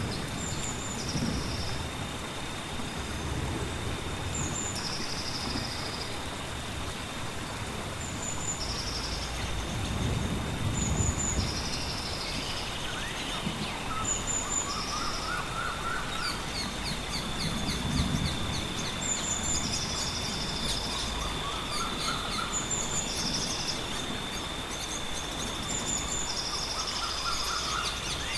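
Jungle ambience: a bird repeats a short high call followed by a buzzy phrase every few seconds over a steady high insect drone and a background hiss. A lower rising call comes in three times in the second half, and low rumbles sound twice.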